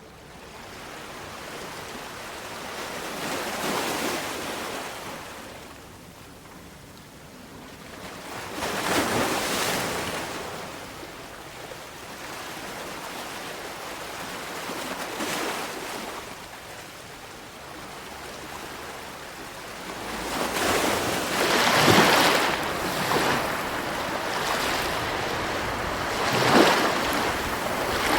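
Sea waves breaking and washing on the shore, a steady hiss of surf that swells into louder breakers every few seconds, the strongest about three-quarters of the way in.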